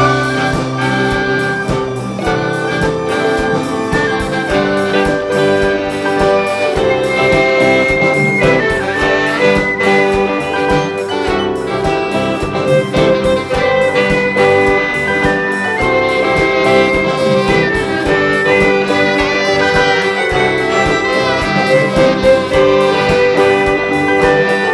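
Orchestra playing live, a brass and saxophone melody over strings, with percussion keeping a steady beat.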